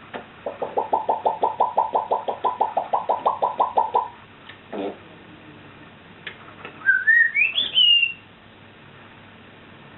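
African grey parrot calling: a fast string of short pitched pulses, about seven a second, for some three and a half seconds, then a whistle that climbs in steps and dips slightly at the end.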